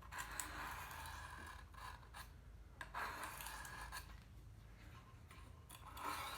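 Steel knife blade, clamped in a wooden sharpening jig, honed on an oiled Arkansas oil stone: a few slow, faint rubbing strokes of about a second each.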